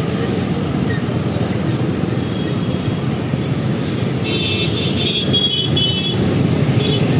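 Road traffic of a congested city street heard from a moving scooter: a steady rumble of motorbike and scooter engines and tyre noise, with a few brief high-pitched tones about four to six seconds in.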